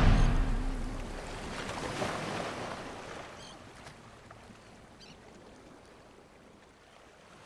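Ocean surf washing, fading away gradually, with the last held note of the closing music dying out in the first second.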